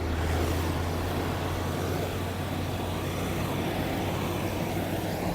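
Diesel engine of heavy road-construction machinery running steadily, a low even drone.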